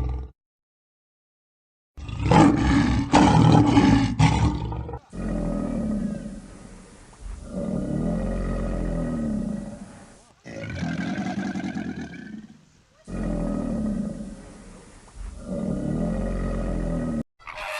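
A big cat roaring: after about two seconds of silence, one rough, loud roar of about three seconds, then a run of about five long roars, each two to three seconds and bending up and down in pitch.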